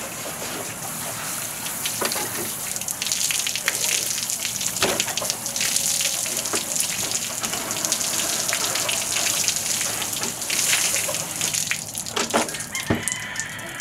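Running water rinsing out the body cavity of a freshly eviscerated chicken: steady splashing with irregular spatter as the stream hits the carcass.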